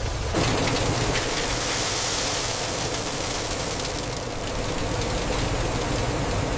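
A heavy vehicle's engine running under a steady rushing hiss that comes in abruptly just after the start and holds.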